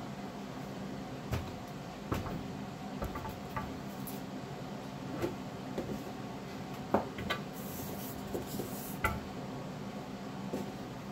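Scattered light clicks and knocks of painting tools and small objects being handled on a work table, the sharpest about seven seconds in, over a steady low hum.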